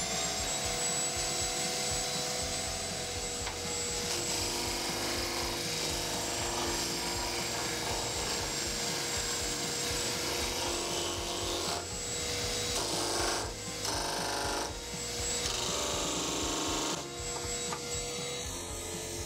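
Canister vacuum cleaner spinning up to a steady high whine in the first moment, then a wooden board sanded against a homemade electric disc sander: wood rasping on the abrasive disc in several passes, loudest from about 12 to 17 seconds in.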